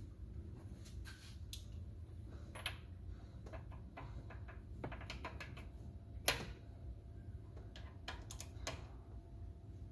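Scattered light clicks and taps from a ratchet and socket on the crankshaft bolt as a Gen 2 Coyote V8 is turned over by hand to check the new cam timing. One sharper click comes about six seconds in, and a quick run of clicks near the end.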